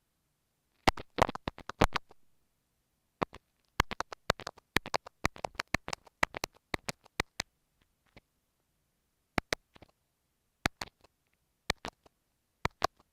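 Kinetic sand slime worked against an earphone microphone, making sharp sticky clicks and crackles. They come in a quick cluster about a second in, a longer run of rapid clicks from about four to seven seconds, and then a few scattered clicks with short silences between them.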